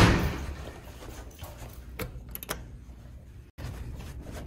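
Handling noise from a handheld camera: a soft knock right at the start that fades over about half a second, then a few light clicks about two seconds in. The sound drops out for an instant past three and a half seconds.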